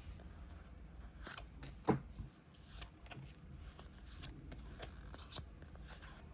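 Faint rustling and crinkling of a Pokémon card booster pack being opened and its cards handled, with scattered small clicks and one short, louder snap about two seconds in.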